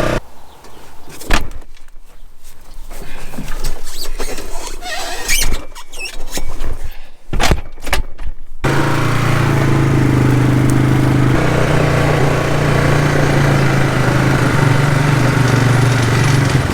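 Scattered metal knocks and clanks, then a steady engine or motor hum that starts abruptly about halfway through and shifts slightly in pitch a few seconds later. This is work on a flat tire of a center pivot irrigation tower.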